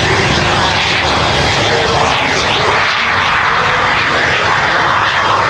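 Super Salto jet sailplane's small jet engine running at takeoff power as it lifts off and climbs past: a steady jet rush whose hiss sweeps up and down as the aircraft moves by.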